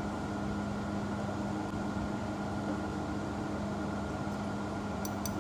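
Wire-cut EDM machine running with a steady hum, a low tone and a fainter higher one over an even machine noise, and a few light clicks near the end.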